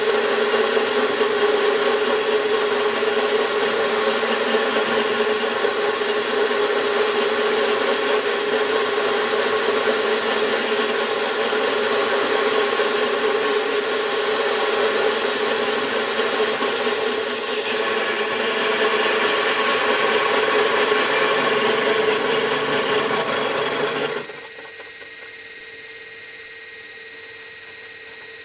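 Homemade benchtop vertical milling machine cutting A6061 aluminium plate with a 25 mm five-flute high-speed-steel roughing end mill turning at about 300 rpm, a steady, noisy cut with the drive motor's whine underneath. Near the end the cutting noise stops abruptly and only the motor's steady whine remains.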